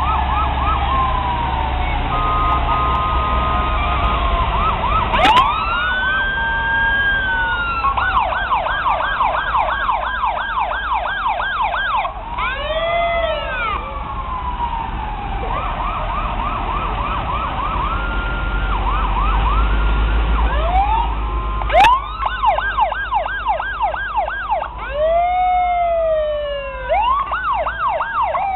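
Fire engine sirens sounding as the trucks roll by. Several sirens overlap, mixing a fast repeating yelp with slow rising and falling wails, over a low rumble. Two sharp clicks stand out.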